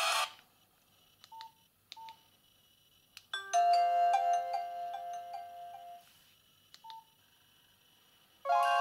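Nokia 7230 mobile phone playing its ringtones through its loudspeaker. One tone cuts off at the start and two short beeps follow. A short melody of pitched notes plays for a few seconds, then another beep, and a new ringtone starts near the end.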